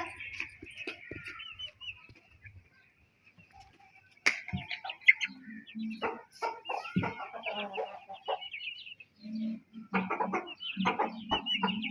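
Chickens clucking and chicks peeping over their feed, with many short high peeps over lower clucks. A lull comes about two seconds in, then the calling picks up around four seconds in and grows busier toward the end.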